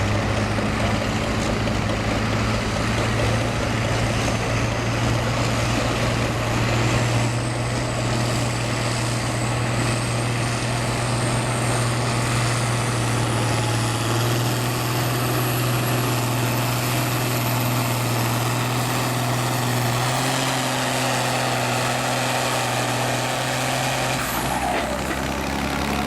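Farm tractor engine running hard under load while pulling a sled, with a faint high whine rising slowly over the first half. The engine note drops about three-quarters of the way through and shifts again near the end as the run winds down.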